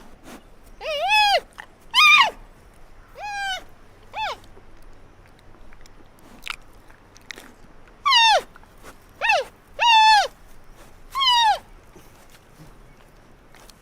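Panda cub squealing: about eight short, high calls, each bending up and then falling away, in two bursts with a pause of a few seconds between them.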